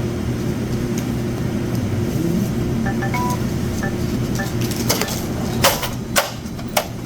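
Cash register sounding a few short electronic beeps as a sale is keyed in, over a steady low hum. From about five seconds in there are four sharp clacks, roughly every half second.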